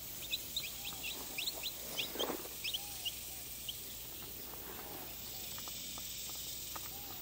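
Chicks peeping: many short, quick, high chirps in the first few seconds, thinning out after that, with a few softer, lower calls between.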